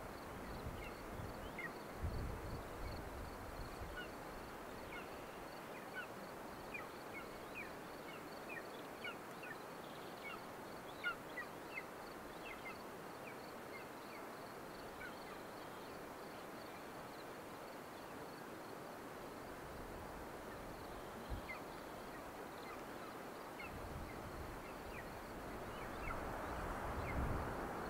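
Many short, high bird chirps scattered irregularly over a steady outdoor background hiss, with low wind rumble near the start and building over the last few seconds.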